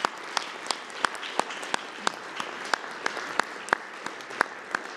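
Audience applauding, with one person's claps close by standing out, sharp and even at about three a second.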